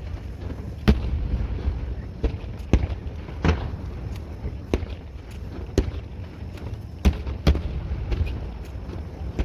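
Fireworks shells bursting in irregular quick succession: about nine sharp booms, spaced half a second to a second apart, over a steady low rumble.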